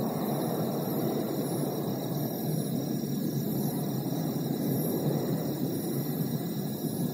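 Jet airliner flying overhead, a steady low rumble that holds level without rising or falling.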